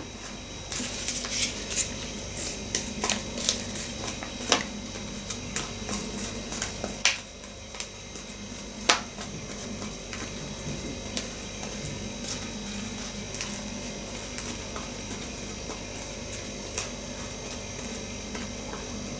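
A spoon clicking and scraping in a plastic bowl of corn sticks in milk, with quiet eating. Sharper clicks come every second or so for the first nine seconds, then thin out.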